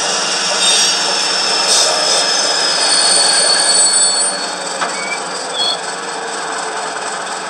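Model train running on the layout: a steady rushing run with high-pitched wheel squeal, which eases after about four seconds.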